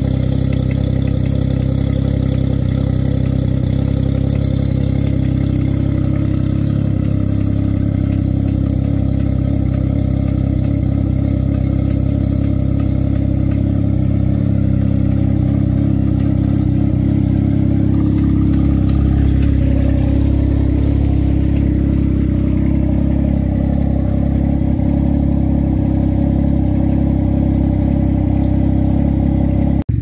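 Can-Am Ryker Rally's three-cylinder Rotax 900 ACE engine idling steadily through a Brannon King aftermarket exhaust with its baffle fitted.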